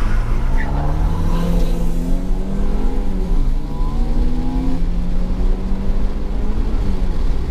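Toyota Celica GT-S's 2ZZ-GE four-cylinder engine heard from inside the cabin, revving up as the car accelerates, dropping in pitch at a gear change about three and a half seconds in, then rising again before holding steadier.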